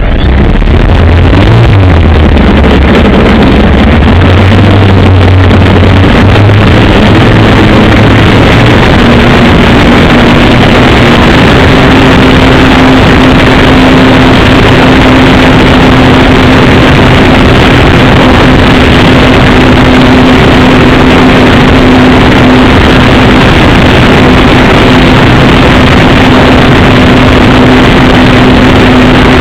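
Small model-airplane engine running loud and close. Its pitch wavers low for the first several seconds, then rises about nine seconds in and holds steady.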